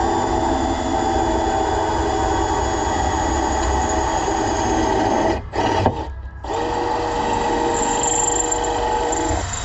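Electric drill running steadily while drilling holes for the roll cage mounts. It stops briefly twice between five and six and a half seconds in, then runs again with a steady whine.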